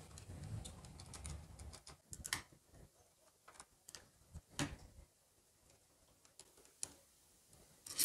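Faint clicks and light ticks of a screwdriver and metal parts as the screws are taken out of a pedestal fan motor's end covers, a few sharp clicks about two seconds apart.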